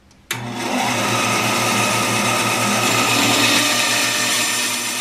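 Bandsaw starting suddenly a moment in and running steadily with a low hum while a plywood board is fed to its blade for a crosscut.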